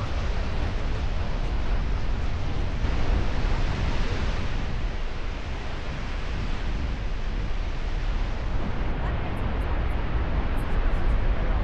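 Steady roar of Goðafoss waterfall, with wind rumbling on the microphone.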